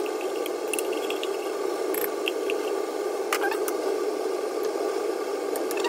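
Pot of vegetables cooking in coconut milk at the boil: a steady rushing noise with scattered small pops and clicks.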